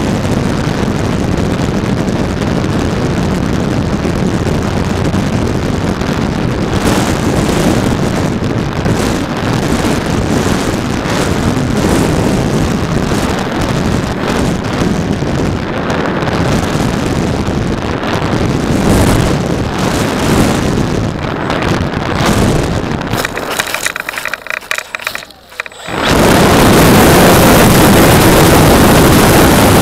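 Radio-controlled PT-17 Stearman model biplane in flight: its motor and propeller run steadily, with wind rushing over the onboard camera. Near the end the sound drops and flutters for a couple of seconds, then comes back suddenly louder and steady.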